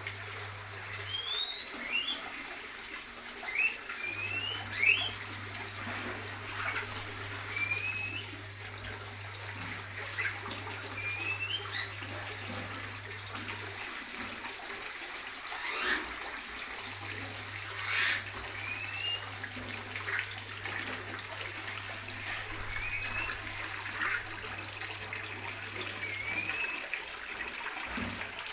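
Small aviary birds chirping: short, rising calls repeated every second or so over a steady hissing background, with a low hum that comes and goes.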